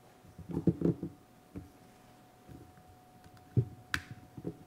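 Scattered clicks and knocks of a laptop keyboard and trackpad being worked, with one sharp click near the end, over a faint steady electrical tone from the sound system.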